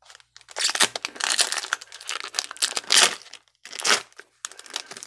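Foil wrapper of a baseball card pack being torn open and crinkled in the hands, in several crackling bursts, the loudest about three seconds in.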